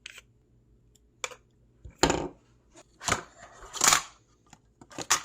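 Velcro on a small flashlight case being pulled apart: several short tearing rips, with a few clicks of handling between them.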